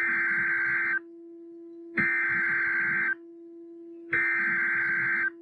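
Emergency Alert System SAME header data bursts: three harsh, buzzy digital screeches, each about a second long with about a second of gap between them, over a steady low hum. They announce an incoming warning.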